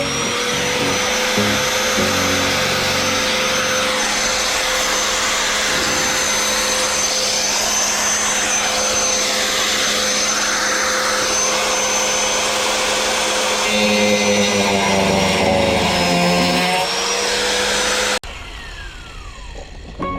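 A small electric motor running steadily with a rushing hiss and a constant whine, then cutting off suddenly near the end.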